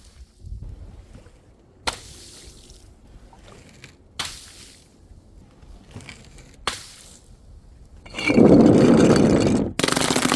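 Three sharp crashes about two seconds apart, each with a short bright tail as pieces settle, typical of dropped glass bottles and jars smashing. Near the end comes a loud liquid splash lasting about a second and a half, as from a water-filled balloon bursting, followed at once by another crash.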